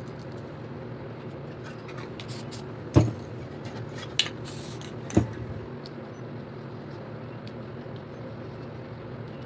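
Short hisses of an aerosol spray paint can, with two sharp knocks about three and five seconds in, over a steady low hum.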